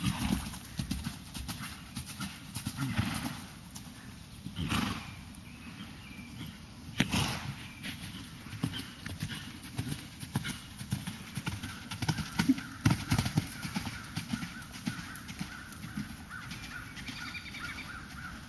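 Hoofbeats of a horse cantering on a sand arena, going over an oxer jump and cantering on: irregular dull thuds on the soft footing.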